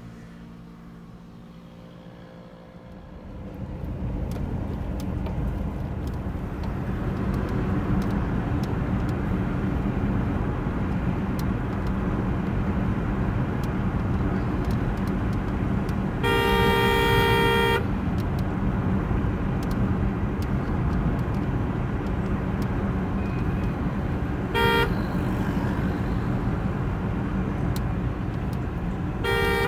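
Road traffic with steady engine noise that builds up over the first few seconds, and a vehicle horn honking: one long blast a little past halfway, then a short toot and another near the end.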